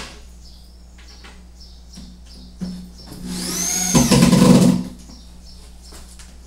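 Corded electric drill driving a screw into a cabinet panel: one run of about a second and a half, its whine rising and then falling, with a brief knock shortly before.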